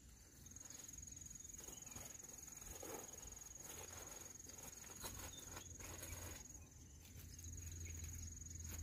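Insect trilling steadily on one high pitch, broken off briefly about two-thirds of the way through, with faint scattered rustles and a low hum near the end.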